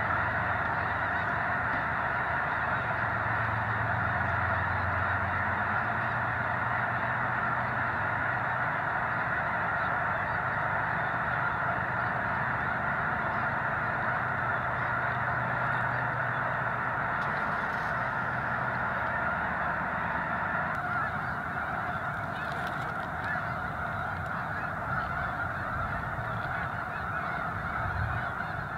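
A huge flock of snow geese calling all at once: a dense, continuous din of overlapping honks that eases off slightly in the last third.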